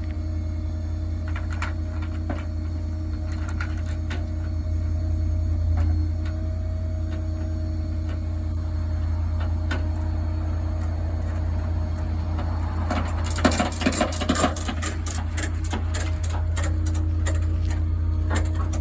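An engine running steadily with an even low hum. About 13 seconds in there is a short burst of rattling and clicking.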